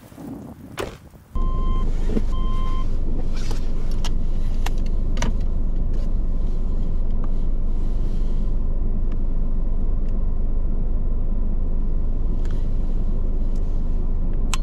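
Car engine idling, heard from inside the cabin as a steady low rumble that cuts in suddenly about a second in. Two short electronic chimes from the car sound just after it starts, with a few light knocks from handling later.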